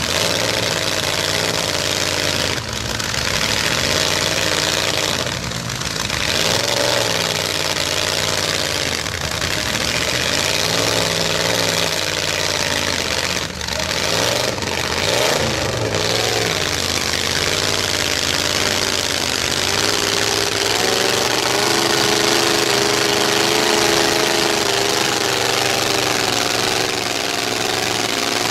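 Demolition derby trucks' engines running and revving together, loud and continuous, with a few short breaks in the noise in the first half and a steadier drone from about two-thirds of the way in.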